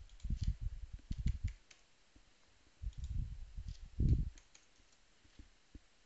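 Typing on a computer keyboard: two short bursts of keystrokes, the second ending in one louder knock.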